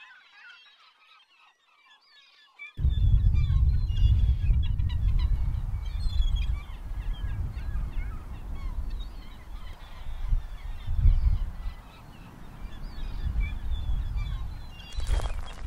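Many birds calling over one another in short, chirping calls. From about three seconds in, wind rumbles loudly on the microphone.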